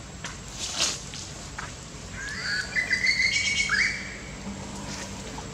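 A run of high chirping calls near the middle, with quick rising glides and a held, wavering note, lasting about a second and a half.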